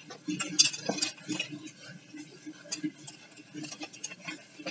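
Light clinks and knocks of a Hawkins pressure cooker lid being handled while a new rubber gasket is seated in its rim, the sharpest clatter about half a second to a second in.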